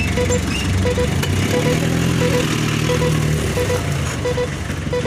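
Heavy truck engine running with a reversing beeper sounding in regular double beeps, about one pair every 0.7 seconds; the engine note swells for a couple of seconds in the middle.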